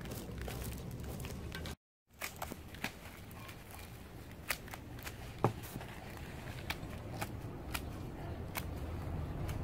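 Hand pruning shears snipping through the roots of a bougainvillea root ball, short sharp snips roughly once a second, with crackling as the root mass is handled. In the first two seconds a blade is raked through the roots, scratching, before a brief drop-out in the sound.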